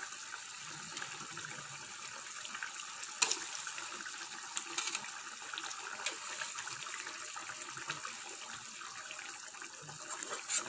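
Thick curry gravy simmering and bubbling in an aluminium kadai, a steady sputtering hiss. A few sharp metal clinks come as a spatula pushes fried boiled eggs off a steel plate into the pan; the loudest is a little over three seconds in, another just before the end.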